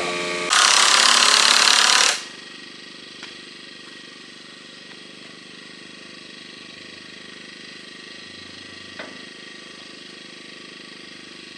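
A loud, even hiss that starts about half a second in and cuts off sharply after about a second and a half, followed by a low steady background with a faint click.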